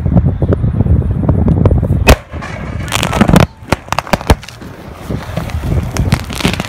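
Sodium metal exploding in pond water: a sharp bang about two seconds in, then a quick run of cracks and pops over the next two seconds and one more crack near the end. Wind buffets the microphone throughout.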